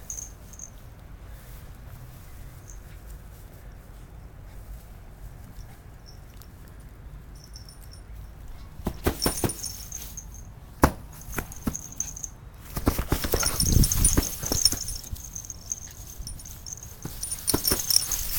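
Small dogs playing in dry straw and grass: rustling, scuffling and crackling of the straw. It is quiet for the first half, then gets busier with sharp clicks and a louder scuffle about three-quarters of the way in.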